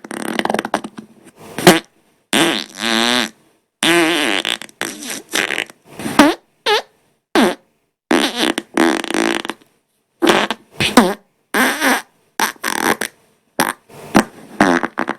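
A rapid string of human farts, one after another, about two dozen in all. Some are short pops and some are longer, with a wavering pitch, each cut off sharply before the next.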